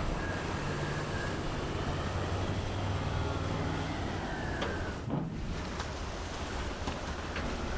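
M3 amphibious bridging vehicles' engines running steadily on the river, with water and wind noise. A few faint clicks come in the second half.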